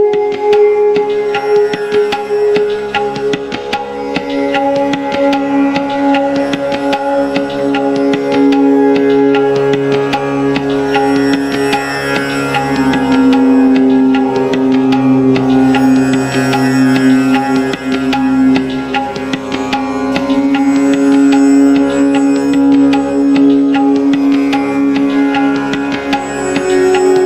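Background music: steady held notes under a quick, busy run of short struck notes.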